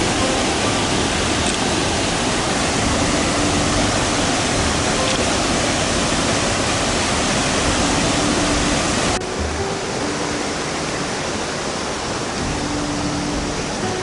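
Waterfall's steady roar: water pouring over three tiers of welded tuff into a plunge pool. About nine seconds in, the sound cuts abruptly to a quieter, duller rushing of the river.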